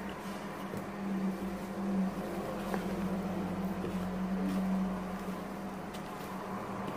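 Wooden spoon folding thick cake batter in a stainless steel bowl, with soft scraping and a few light knocks against the bowl. A steady low hum runs underneath.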